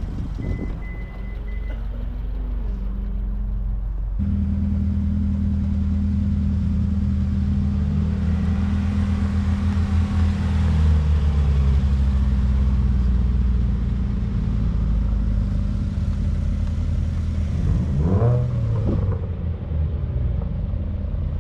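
A car engine running with a deep, steady rumble that comes in abruptly about four seconds in, after a short high beep near the start.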